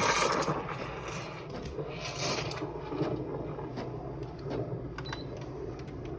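Espresso machine steam wand hissing while frothing milk, fading out within the first second, with a shorter burst about two seconds in. A low steady hum runs underneath, and a few light clicks come near the end.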